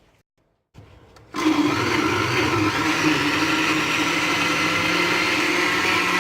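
Countertop blender switching on about a second and a half in and running steadily at full speed, blending chopped cucumber, mint, lemon juice, sugar and water into juice.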